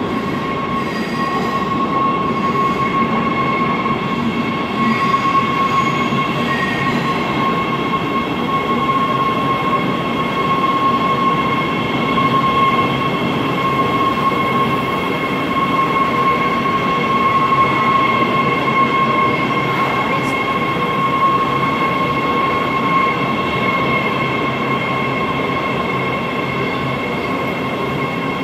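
Breda A650 subway train pulling into an underground station and rolling past along the platform: a continuous rumble of the cars on the rails, with a steady high-pitched whine held at one pitch over it.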